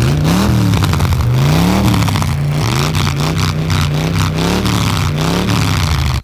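Motor vehicle engine revving, its pitch climbing and dropping back several times, with stretches held steadier between. It cuts off abruptly.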